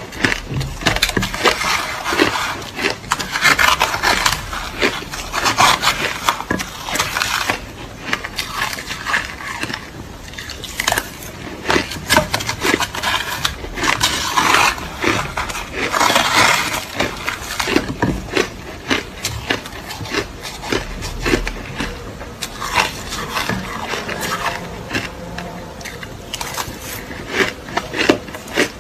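Crushed ice being bitten and chewed close to the microphone: a dense run of crackling crunches that swells into heavier bursts every few seconds.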